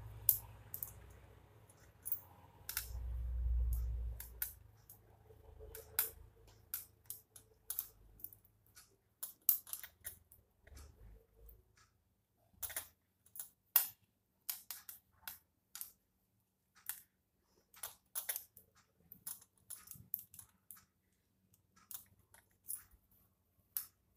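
Light, irregular clicking and clinking as yarn is hand-knitted: knitting needles tapping and glass bangles knocking on the wrists as the hands work stitches. A low rumble sits under the first four seconds.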